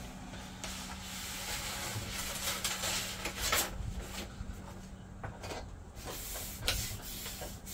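Peel-and-stick vinyl wallpaper being handled on a table top: rustling of the vinyl sheet and its paper backing as they are lifted and peeled, and hands rubbing the vinyl flat, with a few sharp crackles.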